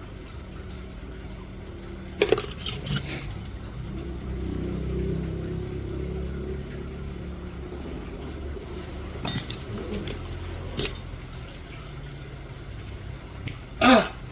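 Metal nail-care instruments clinking, a few separate sharp clinks spread apart, over a low steady hum.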